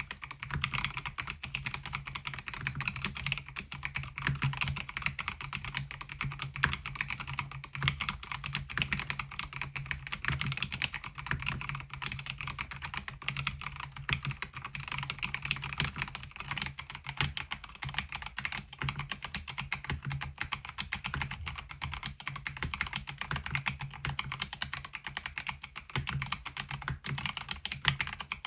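Continuous fast typing on a MelGeek Mojo68 mechanical keyboard fitted with KiiBOOM Digital Dreams pastel Y2K keycaps in MOA profile: a dense, steady run of keystroke clacks.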